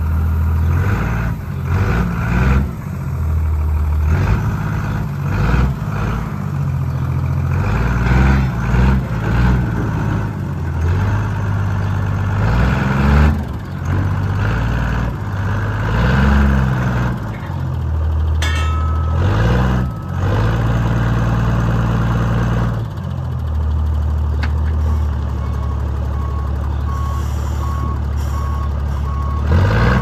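A cab-over truck's diesel engine revs up and down while it drags a float trailer whose brakes are locked on. It then settles to a steady run, and a reversing beeper starts pulsing near the end.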